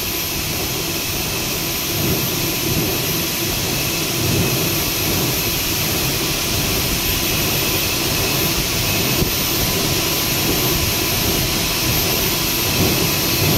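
PP melt-blown filter cartridge machine running, with its extruder at about 250 rpm: a steady, loud rushing noise with a low machine hum underneath.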